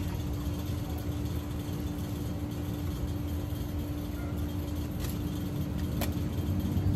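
A steady low mechanical hum over a rumble, with two faint clicks about five and six seconds in.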